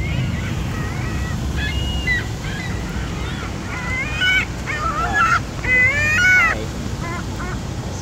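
Ring-billed gulls calling: a run of high, wavering calls that glide up and down in pitch, loudest and longest about six seconds in, over a steady low background rush.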